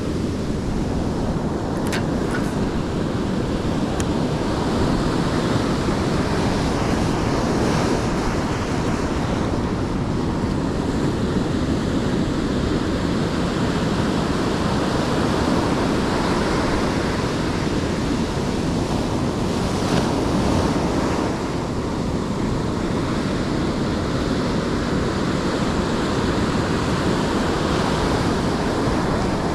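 Ocean surf washing in steadily, with wind buffeting the microphone.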